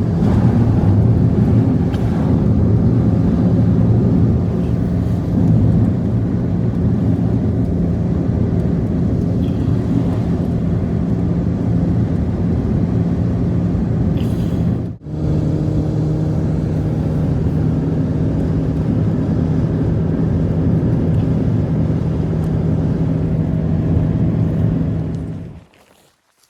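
Loud steady engine rumble with a steady low hum, broken by a short gap about fifteen seconds in and stopping abruptly near the end.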